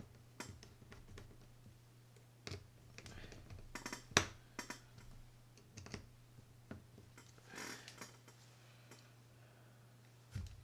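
Faint, scattered small clicks and ticks of a screwdriver and metal parts as two small screws are driven down into a Shimano Curado K baitcasting reel's frame; the sharpest click comes about four seconds in.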